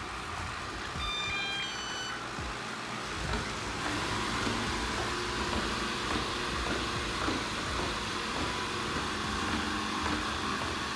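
Ecovacs Deebot N79W robot vacuum starting its auto cleaning mode. A short electronic beep tune plays about a second in. From about four seconds in, the suction motor and brushes run steadily.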